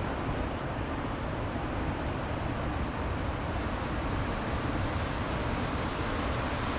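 Steady wash of ocean surf with wind rumbling on the microphone, an even noise without any distinct events.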